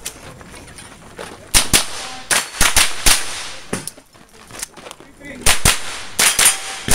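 A string of about a dozen quick rifle shots from a .22 rimfire mini-rifle, fired in irregular pairs and short bursts. The shots begin about a second and a half in.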